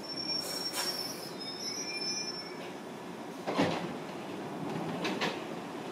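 London Underground 1973-stock Piccadilly line train standing at the platform: a hiss with high squealing tones in the first couple of seconds, then a loud knock about three and a half seconds in as the doors open, and a few smaller knocks after it.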